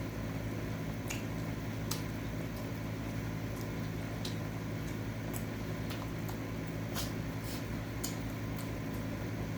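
Room air conditioner running with a steady low hum, with scattered small clicks over it.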